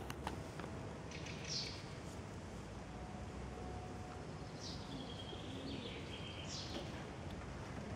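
Steady low outdoor background noise with a few short high bird chirps: one about one and a half seconds in and a cluster between about four and a half and seven seconds.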